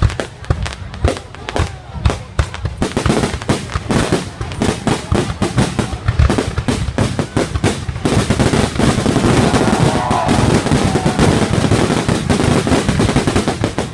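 Fireworks going off in a rapid run of bangs and crackles, spaced out at first, then thickening into continuous crackling about eight seconds in.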